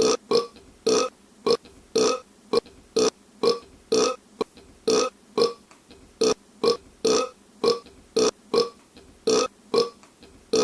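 A man burping in a rapid string of short burps, about two to three a second, after drinking soda.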